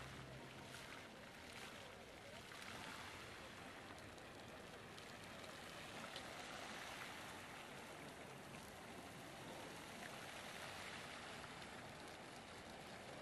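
Faint, steady splashing of water from a pool fountain's jets.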